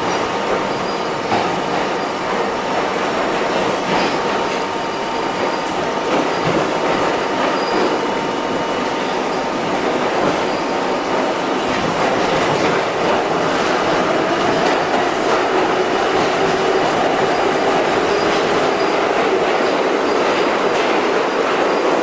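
Inside a Budd-built R32 subway car running between stations: a steady rush of steel wheels on the rails, with rail-joint clicks and thin, high wheel squeal. The noise grows a little louder about halfway through.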